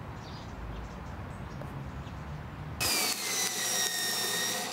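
Low steady traffic rumble, then about three seconds in an electric paper shredder starts up suddenly and runs with a high motor whine as it shreds paper.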